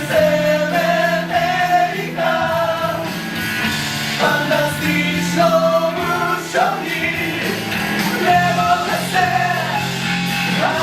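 Live band performing a song: a singer's melody over sustained instrumental chords.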